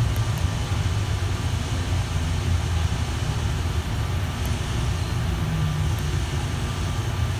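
Bombardier Innovia APM 100 people mover running along its guideway, heard from inside the car: a steady low rumble from its rubber tyres and drive, with a few faint clicks.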